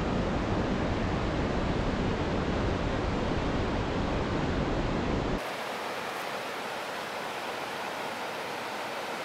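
Mountain river rushing through a gorge: a steady, loud roar of water. About five seconds in it drops abruptly to a quieter, thinner hiss with less low rumble.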